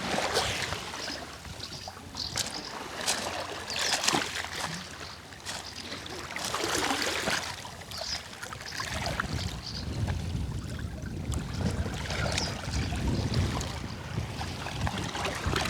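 Sea waves washing onto the shore and drawing back in repeated swells, with a low rumble coming in during the second half.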